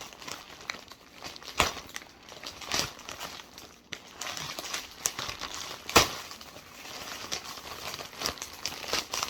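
A mail package being handled and opened: crinkling and rustling, with sharp cracks about one and a half, three and six seconds in, the one near six seconds the loudest.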